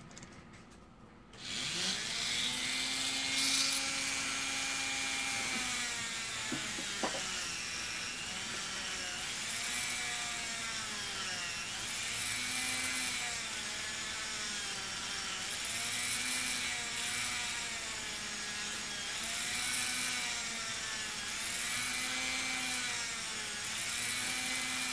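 A small hand-held rotary tool motor starts about a second in and runs on while cutting away plastic. Its pitch sags and recovers again and again as the bit bites into the part.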